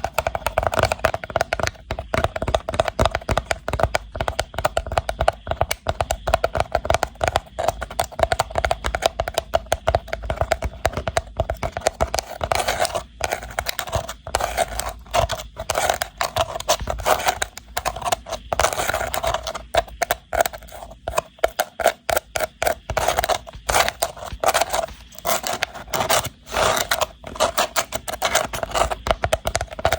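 Rapid scratching and tapping on a woven rattan box: a dense, continuous run of quick clicks and scrapes.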